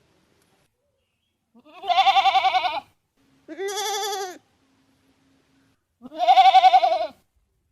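Goat bleating three times, each a wavering call of about a second, with short silent gaps between.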